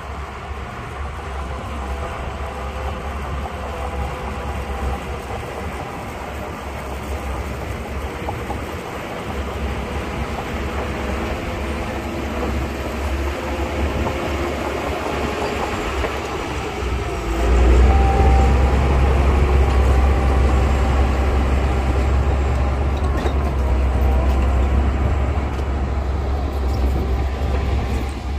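Heavy diesel earthmoving machinery running, a deep engine sound that builds slowly and steps up louder about seventeen seconds in.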